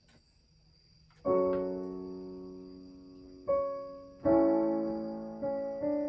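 Near silence for about a second, then a digital piano starts a slow introduction: single chords struck a second or so apart, each ringing out and fading before the next.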